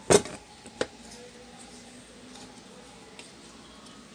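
Knocks of a rice cooker's plastic base housing being handled on a workbench: one sharp knock just after the start and a smaller one under a second later, then faint handling noise.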